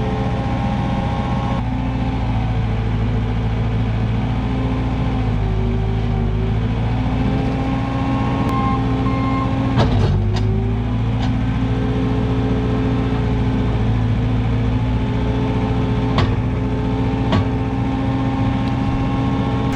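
Skid steer engine running steadily, its pitch shifting slightly now and then as it works. A few sharp clanks come about ten seconds in and twice more near the end.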